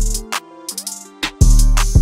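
Background music with a drum-machine beat and deep bass, which drops out for about a second partway through and then comes back.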